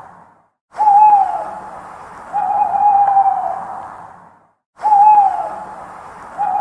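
Owl hooting: a short hoot that drops in pitch, followed by a longer, nearly level hoot, the pair coming twice. Each hoot fades out slowly, and the sound cuts to silence briefly before each pair.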